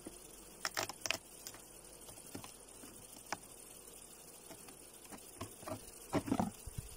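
Wooden hive frames knocking and scraping against the hive body as a frame glued down with propolis is prised loose and lifted out: a few sharp knocks about a second in, scattered small clicks, then a louder cluster of cracks and scrapes around six seconds in as the frame comes free.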